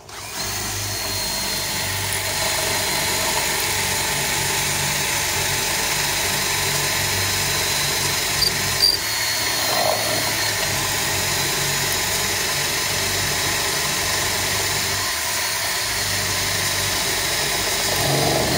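Electric drill running steadily under load with a high motor whine, boring a bolt hole through deck lumber with a bit that has been dulled.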